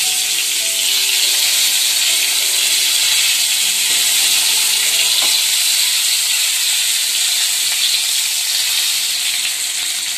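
Hot oil sizzling steadily in a kadhai as stuffed small brinjals fry in a mustard-seed and cumin tempering, with a few faint clicks as more brinjals are set into the pan.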